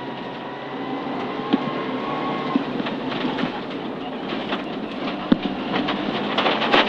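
Mitsubishi Lancer Evo IX rally car's turbocharged four-cylinder engine running hard, heard inside the cabin at speed on gravel, with a steady roar of tyres and stones and gravel clattering against the underbody; one sharper knock about five seconds in.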